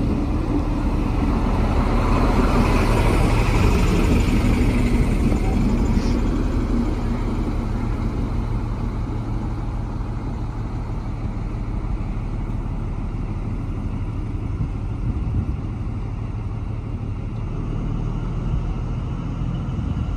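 Diesel engines of Class 43 HST power cars pulling a train out of a station. The sound is loudest a few seconds in, as a power car passes close by with a rush of noise over the engine note. After that a steady low engine drone carries on as the train draws away.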